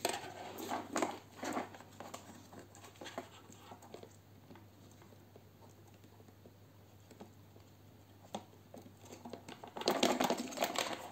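Small plastic clicks, taps and rustles from handling a toy quadcopter's plastic frame while its battery and connector are fitted into the battery bay. The clicks come in the first couple of seconds and again in a denser flurry near the end, with quiet between.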